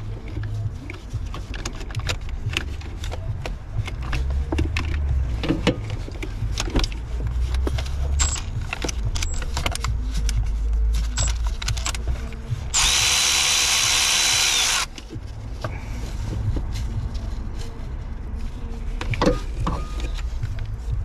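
Cordless electric ratchet running for about two seconds near the middle, spinning out a top bell housing bolt. Around it, scattered clicks and knocks of the tool and metal parts, over a steady low rumble.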